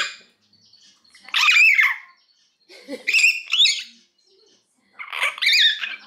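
A young hill myna, three months old and not yet able to talk, giving three short calls about a second and a half apart, each with a wavering, rising and falling pitch.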